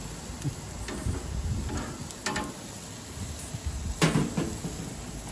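Metal tongs clacking against the grill grates and chicken while tenders are turned, a handful of short clacks with the loudest about four seconds in, over a low steady background noise.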